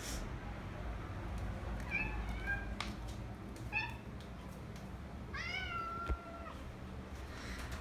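A cat meowing three times, the last call the longest at about a second, with a couple of sharp clicks in between.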